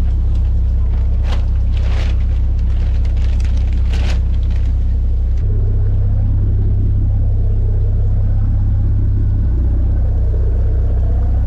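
Fishing boat's engine running with a steady low hum, its note shifting to a different pitch about halfway through. A few sharp knocks come in the first few seconds.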